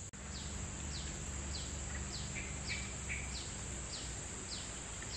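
A steady high insect drone, with a bird repeating a short falling note about every half second and a few brief higher chirps near the middle.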